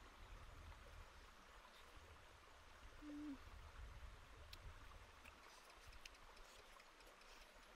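Near silence: a faint outdoor hiss with a low rumble, one short low hoot about three seconds in, and a few faint clicks near the end.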